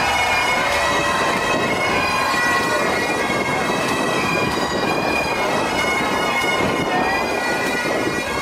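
Bagpipes playing, their steady drones held under a shifting chanter melody.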